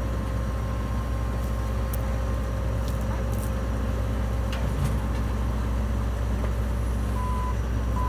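John Deere 9770 STS combine's diesel engine running steadily as the combine creeps up to a soybean header to attach it, with a thin steady high tone over it. Near the end a short beeping alarm starts, repeating about twice a second.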